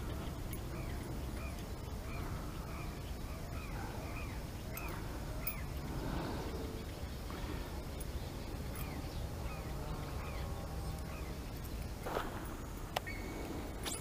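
A long series of short animal calls, each rising and falling in pitch, repeating about two a second over a steady low rumble.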